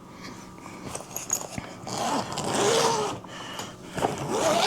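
Rustling and scraping of a fabric food delivery bag being handled, with scattered clicks and a louder rustle about two seconds in that lasts about a second.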